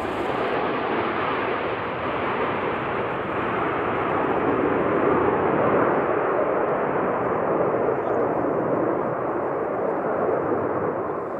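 Jet noise from a formation of F-5E Tiger II fighters flying overhead, their twin J85 turbojets making a steady rush that swells about halfway through and grows gradually duller as its high end fades.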